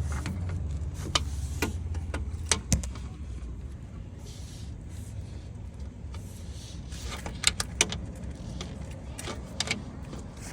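Scattered metal clinks and knocks of hand tools working on a semi truck's alternator mounting, in small clusters, over a low rumble that eases after about three seconds.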